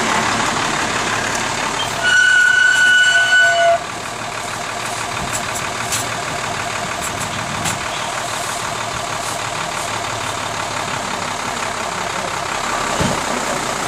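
Rear-loading garbage truck's diesel engine running as the truck moves slowly, with steady engine and road noise. About two seconds in, a loud, steady horn-like tone sounds for nearly two seconds.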